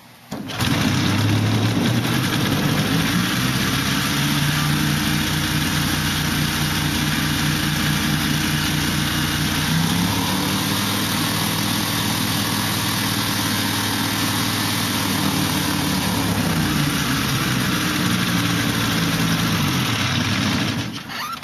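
Rotax 447 two-cylinder two-stroke engine driving a pusher propeller starts abruptly about half a second in and runs steadily at idle. The revs rise a little around the middle, settle back, and the engine is shut off just before the end.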